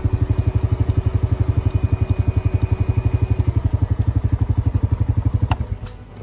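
Honda Rubicon 520 ATV's single-cylinder engine idling in neutral with an even chug of about a dozen pulses a second, then cutting out after a click about five and a half seconds in.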